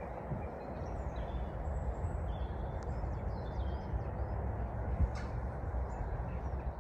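Woodland birds chirping and whistling in short calls over a steady low rumble of outdoor background noise, with a single sharp click about five seconds in.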